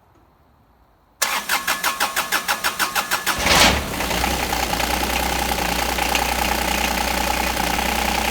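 John Deere 2210 compact tractor's diesel engine being started on a freshly installed battery. The starter cranks briskly, about six or seven pulses a second, for about two seconds, then the engine catches with a surge and settles into a steady idle.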